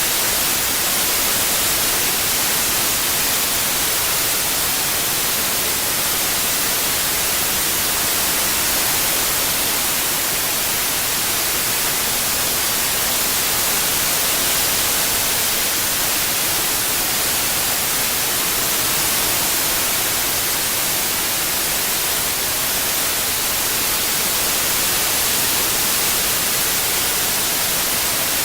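Steady white noise: an even hiss, strongest in the high range, with no breaks or changes.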